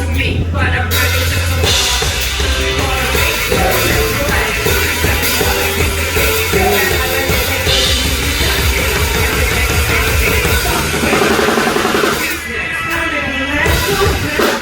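A band plays loud rock music with a drum kit through a stage PA during a sound check. The heavy bass drops away about eleven seconds in.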